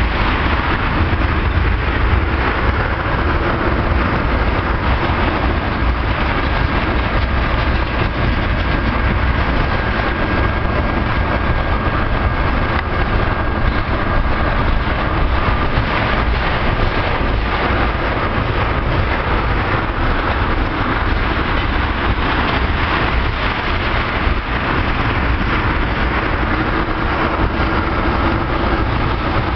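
Crude oil tank cars of a freight train rolling past, a loud steady rumble of steel wheels on rail.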